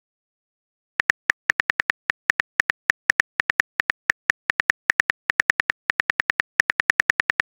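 Phone keyboard typing clicks from a texting app, rapid, unevenly spaced taps several a second, as a text message is typed. They start about a second in.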